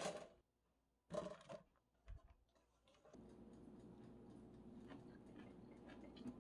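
Parchment paper crinkling in an air-fryer basket as sausages are laid in, twice in the first two seconds, then a soft knock. After that, faint small clicks and scrapes of a wooden spoon pushing a seasoned rice mixture into fried tofu pouches.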